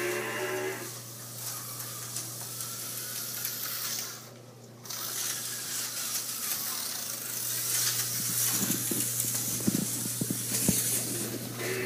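HO slot cars running on the track: a steady high hiss over a low electrical hum, briefly dipping about four seconds in, with a few light knocks in the last few seconds.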